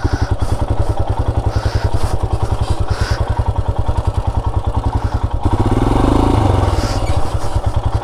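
Motorcycle engine running at low revs with a steady pulsing beat as the bike crawls over a rough, rocky dirt track. The engine note rises briefly about five and a half seconds in.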